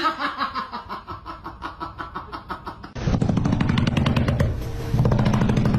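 A person laughing in rapid rhythmic bursts. About three seconds in this gives way to a louder, low rumbling sound with rapid clattering.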